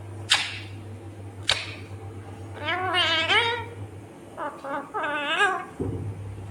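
Green Indian ringneck parakeet calling: two short sharp squawks, then two longer warbling calls with wavering pitch around the middle and near the end, over a steady low hum.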